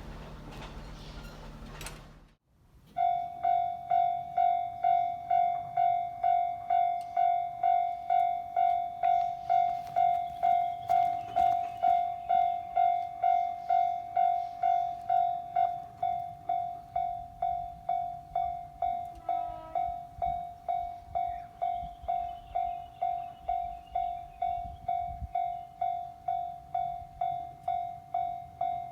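A train running past, then after a sudden break a Japanese level-crossing warning bell ringing in an even repeating ding-ding, about one and a half strikes a second, signalling that a train is approaching. The bell is quieter from about halfway through.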